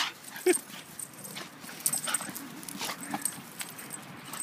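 A dog thrashing about on a lawn on its leash, a run of quick scuffs and sharp clicks with a few brief dog vocal sounds.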